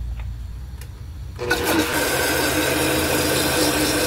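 Countertop blender with a glass jar switched on about a second and a half in, then running steadily as it liquefies blood. Before it starts, a faint click or two.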